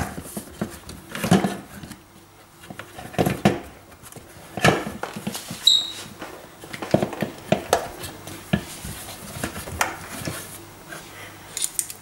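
Hands working inside a dishwasher's base to fit a rubber hose onto the new water heater: scattered clicks, knocks and rustles of plastic and metal parts, with a brief high squeak about six seconds in.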